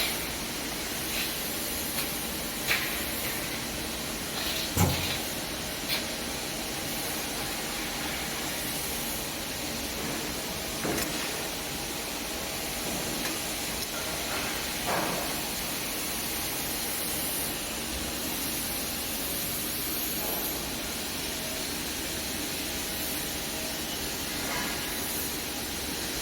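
Straight-seam welding machine running: a steady hiss, broken by a few short clicks and knocks.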